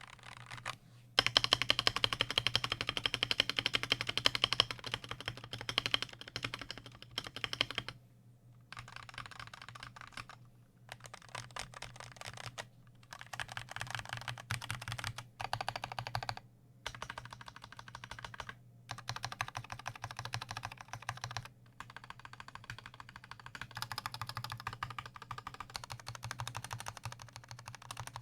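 Fast typing on a stock Gamakay TK68 mechanical keyboard with Gateron Yellow linear switches, undampened with no foam. The keys clack in rapid runs broken by brief pauses, loudest in the first stretch of several seconds.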